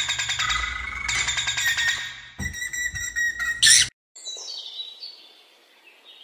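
Small pet bird chirping and chattering in quick, busy calls, which cut off abruptly about four seconds in. After a brief gap comes a fainter, falling chirp that fades away.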